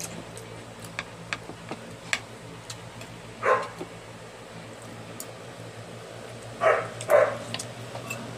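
Dog barking: three short barks, one about three and a half seconds in and two in quick succession near the end. Under them are light clicks of spoons and forks on plates and the steady hum of an electric fan.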